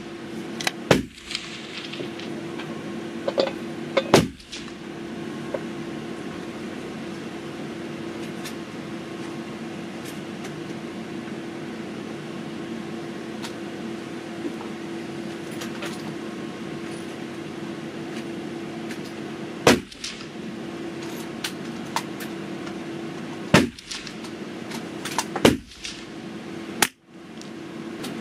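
A steady low hum with a few sharp clicks and knocks, about one and four seconds in and again near twenty, twenty-four and twenty-five seconds in.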